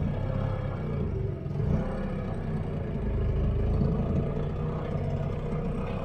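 Small boat outboard motor running steadily under way, a constant low engine rumble.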